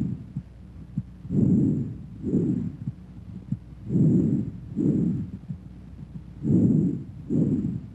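Bronchovesicular breath sounds as heard through a stethoscope: about three full breaths, each an inspiratory and an expiratory sound of about equal length separated by a short silent gap.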